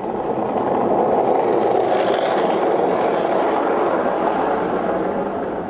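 Skateboard wheels rolling fast over asphalt: a loud, steady rolling noise that swells in over the first second and then holds.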